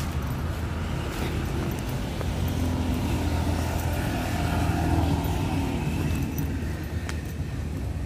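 Road traffic passing on the street below: cars and a motorbike going by, their engines and tyres growing louder to a peak about five seconds in and then easing off.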